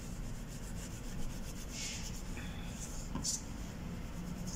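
Cloth-wrapped fingertip rubbing acrylic paint into the edge of a pink craft-foam piece: quiet soft swishes, with a couple of brief hissing strokes near the middle.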